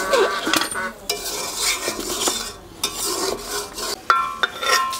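Metal spatula stirring chicken curry in an aluminium karahi, scraping and clinking against the pot's sides in repeated strokes. The curry has just been thinned with water after browning.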